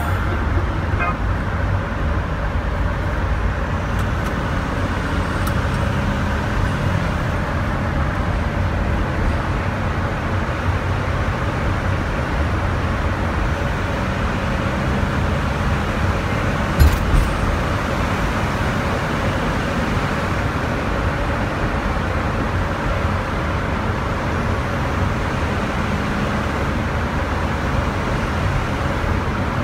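Road noise from inside a car driving through a road tunnel: steady tyre and engine rumble of the car and the traffic around it. Two short knocks come about halfway through.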